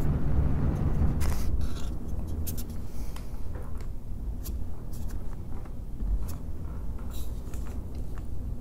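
Noctua NF-A14 PWM fans running, their airflow buffeting the windscreened recorder microphones as a low rumble that eases about a second in. Small clicks and scrapes of the fans being handled sound over it.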